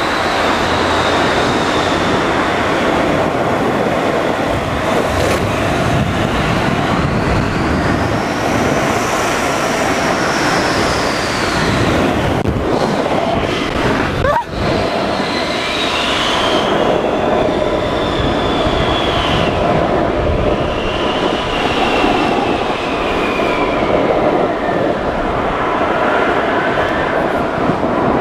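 Snow tube sliding fast down a snow-tubing lane, heard from a camera on the tube: a loud, steady rumbling scrape of the tube over packed snow with wind on the microphone. A few long whistling tones rise and fall over it, and there is one sharp knock about halfway.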